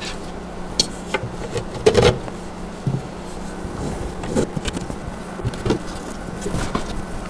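Small screws being picked up and set by hand into pre-drilled holes in a wooden panel: scattered light clicks and taps, the loudest about two seconds in, over a low steady hum.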